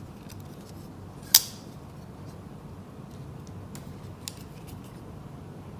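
Kizer October folding knife being worked by hand: one sharp metallic snap about a second and a half in, a softer click near the end, and light ticks from the blade and handle in between.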